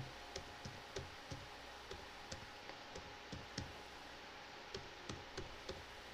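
Computer keyboard keys clicking in an irregular run of single keystrokes as someone types.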